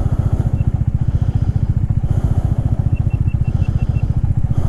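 Royal Enfield Himalayan's 411 cc single-cylinder engine idling with a steady, quick, even thump. A short run of faint high beeps sounds about three seconds in.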